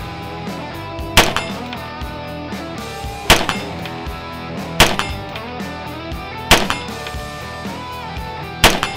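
Five single shots from a DoubleStar ZERO Carbine, an AR-15 fitted with an Alpha Comp muzzle compensator, fired unevenly about every two seconds. Each is a sharp crack with a short ring-out, over background music.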